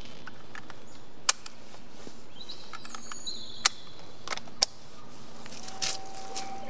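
A few sharp metallic clicks as a Browning BAR 4X semi-automatic rifle is loaded, its detachable magazine snapped into place and the action handled, with birds chirping around.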